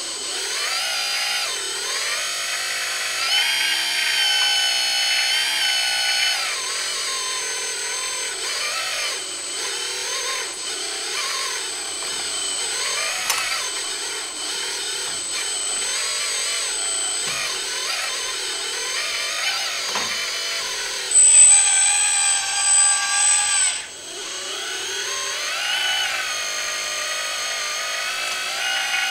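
Hydraulic pump of a 1:16 Kabolite 336 (Huina) RC excavator whining as the boom, stick and bucket are worked, its pitch dipping and rising with the load of each movement. About three quarters of the way in it goes louder and higher for about three seconds.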